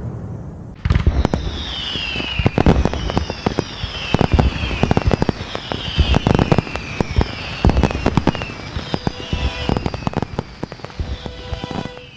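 Fireworks going off: a dense run of bangs and crackles starting about a second in, with repeated falling whistles over them.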